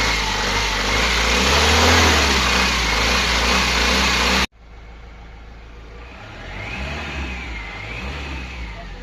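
Mahindra Xylo's diesel engine running smoothly, with no shake or misfire after its valve-lifter repair. About halfway through the sound cuts off abruptly and continues much quieter.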